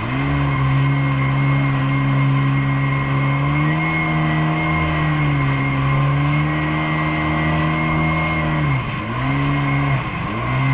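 Jet ski engine running at speed with wind rushing past. Its steady drone dips briefly in pitch near the start and twice near the end.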